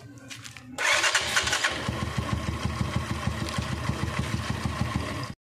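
Single-cylinder four-stroke motorcycle engine starting about a second in and running at a steady idle, with a litre of diesel in its crankcase to flush out debris. The sound cuts off suddenly just before the end.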